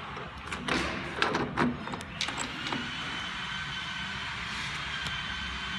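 A few metallic clicks and scrapes as hold-down clamps are handled on an aluminium T-slot table, over a steady background hum. The clicks stop after about three seconds, leaving the hum alone.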